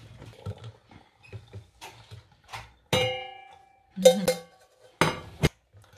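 Saucepan and mesh strainer clinking and knocking against a glass jug as spiced milk tea is strained into it. One ringing clink about halfway through, then a few more sharp knocks near the end, with small clicks in between.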